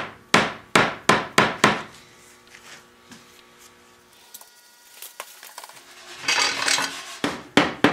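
A mallet knocks down on a teak chair arm about five quick times, driving the glued dowel joint at the top of the back leg home. About six seconds in comes metal clattering and scraping as clamps are handled around the chair frame.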